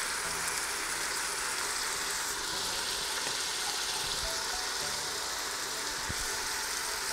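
Diced butternut squash, apple and aromatics sizzling in olive oil in an Instant Pot on its sauté setting: a steady, even hiss.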